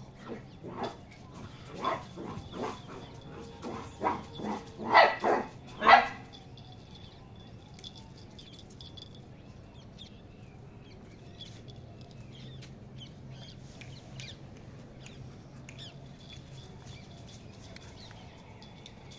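A puppy barking: a quick run of short, high barks over the first six seconds, the last few loudest, then it stops.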